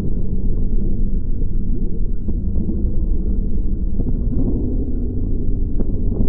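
Surf rock recording slowed to a tiny fraction of its speed, turned into a deep, continuous rumbling drone with slowly bending tones. A few smeared hits come every two seconds or so.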